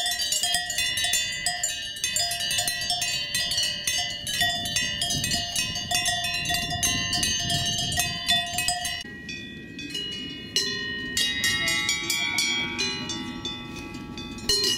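Several cowbells on grazing cows' collars clanking and ringing in an irregular jangle as the cows move their heads. About nine seconds in it changes to a slightly quieter, sparser set of bells at different pitches.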